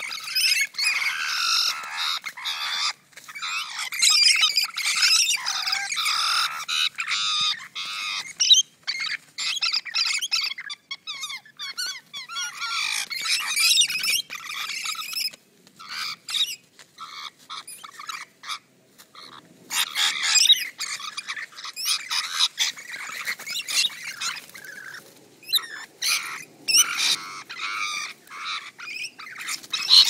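Rainbow lorikeets fighting, screeching and squawking in harsh, shrill bursts broken by short pauses.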